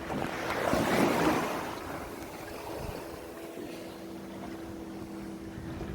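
Wind buffeting the microphone over water around a boat, with a louder gust or splash about a second in, and a faint steady hum underneath.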